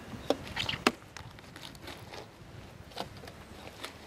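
A few light knocks and taps of knives and fish fillets on a wooden table as flounder are filleted by hand.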